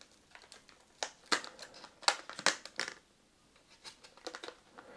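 Motherboard and its packaging being handled: a few sharp plastic clicks and taps with light crinkling, fainter toward the end.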